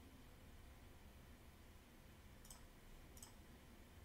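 Near silence: room tone, with two faint clicks about two and a half and three seconds in.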